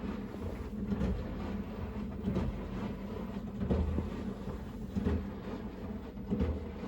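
Koenic KWM 8212 A INV top-loading washing machine running its wash cycle, heard from right against the cabinet: a quiet, low rumble with soft, irregular knocks as the drum turns.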